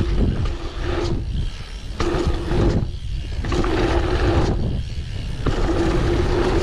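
Octane One Void dirt jump bike rolling over packed dirt jumps, with wind rumble on the camera microphone and tyre noise that swells and dips over the jumps. A steady buzzing tone comes and goes several times.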